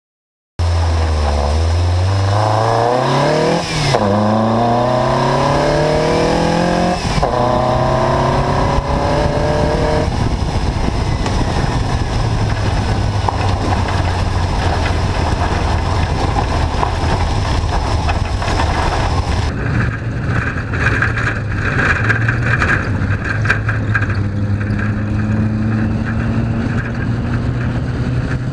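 Škoda 100L rally car's 1.3-litre Škoda Felicia four-cylinder engine on motorcycle carburettors, accelerating hard through the gears. The revs climb and drop back at each shift, several times in the first ten seconds. It then runs on more steadily under road noise, with the revs rising again near the end.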